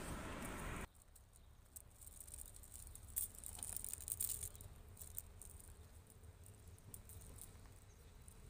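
A steady hiss cuts off abruptly about a second in. It leaves faint outdoor ambience: a low rumble with scattered light ticks and taps, busiest between three and five seconds in.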